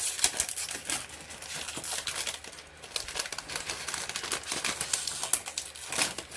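A plastic Lego minifigure blind-bag packet being crinkled and torn open by hand: a dense run of sharp crackles.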